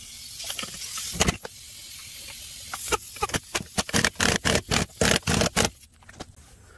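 Air-powered impact wrench running in a quick series of short bursts, driving lug nuts onto a wheel, after a steady hiss of air near the start.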